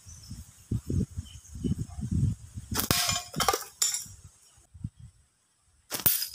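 A ring slingshot's flat rubber bands snap on release, and the shot strikes a hanging metal plate target with a sharp clang about six seconds in. Before that come uneven low rustling and knocking.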